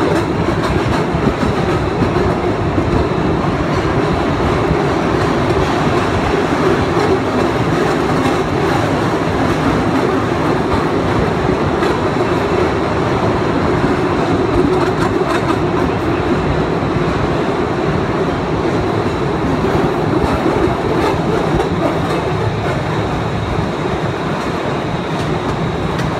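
The Postojna Cave tourist train running on its narrow-gauge rails: a steady clatter of wheels and carriages that carries on without a break.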